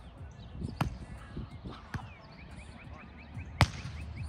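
A volleyball being hit three times in a rally, sharp slaps about a second apart, the third by far the loudest, like a hard spike. Just before it comes a quick run of short high squeaks.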